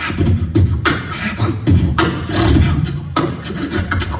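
Human beatbox: a vocal beat of sharp, snare-like hits over a low, steady bass.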